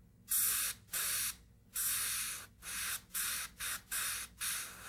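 Airbrush spraying paint in a series of short hissing bursts as the trigger is pressed and released, about nine times, the bursts getting shorter toward the end, laying dark shading along a carved feather's quill.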